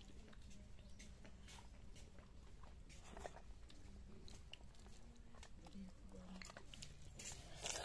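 Faint eating sounds: chewing, and fingers mixing rice on a steel plate, with scattered small clicks.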